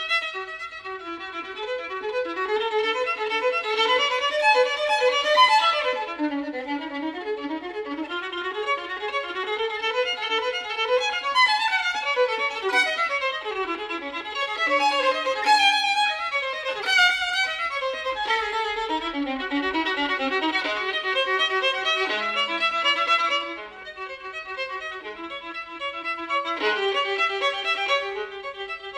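Background music: a violin playing a melody.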